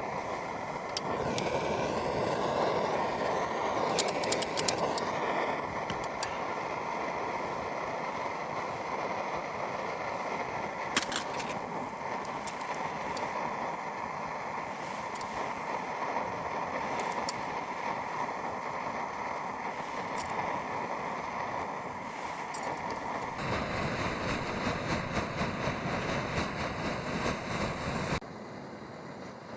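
Camping stove burner running steadily under a pot of snow being melted, with a few sharp clicks and taps. The noise changes character about two-thirds of the way through and drops near the end.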